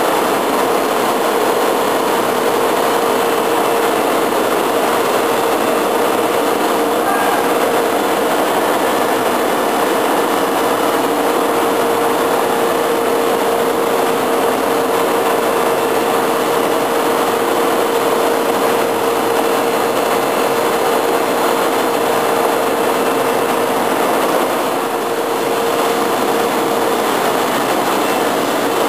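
Steady machinery noise: an even rush with a steady hum in it that stops near the end.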